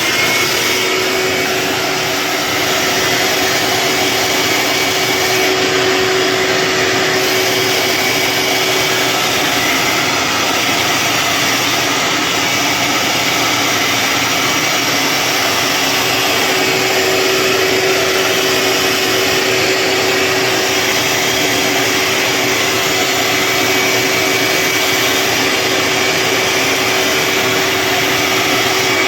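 Shop vac running steadily as it sucks up coal ash, with a faint steady whine in its note. Its filter blocks up quickly with the fine ash.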